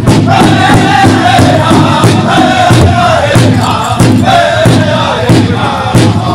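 Powwow drum group singing a contest song, high voices chanting together over a steady beat on a large powwow drum.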